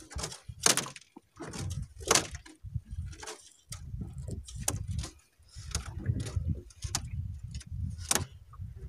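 Irregular knocks, scrapes and rattles as a longline is hauled in by hand over the bow of a small fibreglass boat, with a few sharp clicks standing out.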